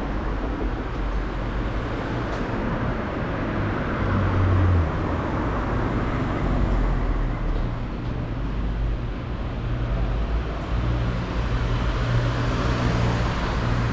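Road traffic on a busy city street: a steady rumble of cars and engines going by, with one engine's low drone standing out about four seconds in.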